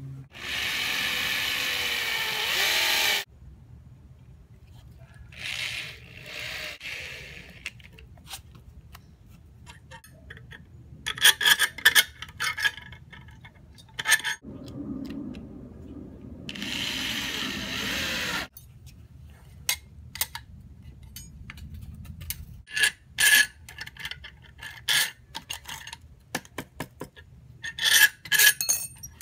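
Assembly of a metal bracket on a wood block: a cordless drill runs three times in short spells of two to three seconds, and between them metal brackets and a steel rod clink and scrape, with sharp ringing knocks. The knocks come in clusters just before halfway and again near the end.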